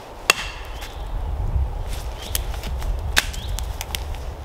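Hatchet striking a dead branch on a pine trunk: two sharp woody cracks about three seconds apart, with lighter snaps of twigs between and a low rumble underneath.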